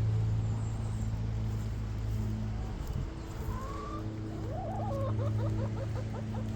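Hen clucking: a short rising note, then a quick run of clucks at about six a second, over a steady low hum.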